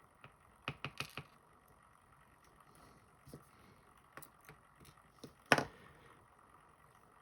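Small metal clicks and taps of lock pins, drivers and tools being handled while a pin-tumbler lock is taken apart. A quick run of four clicks comes about a second in, then scattered light ticks, and one sharper tap just past five seconds.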